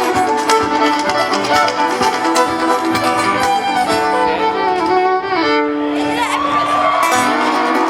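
Live folk string band playing, a fiddle carrying bowed melody lines over the other instruments, with a sliding phrase toward the close of the song. A crowd begins to cheer near the end.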